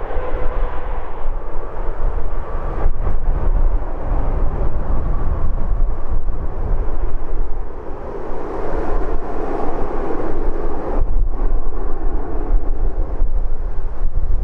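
Airbus A321-211's CFM56 jet engines rumbling during the landing rollout, a steady noisy roar that swells for a few seconds and then drops off sharply about eleven seconds in.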